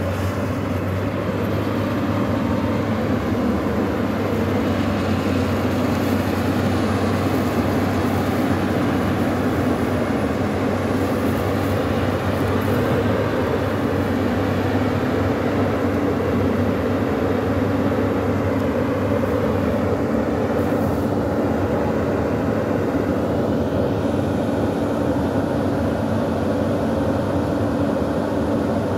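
Hyundai 215L crawler excavator's diesel engine running at a steady pitch, a constant low drone.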